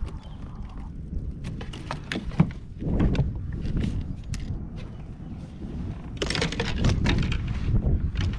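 Scattered clicks, knocks and clatter of fishing gear being handled on a plastic fishing kayak's deck, with two longer rustling stretches over a steady low rumble.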